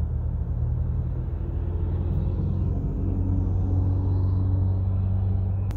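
Car engine running, heard from inside the cabin as a steady low hum and rumble.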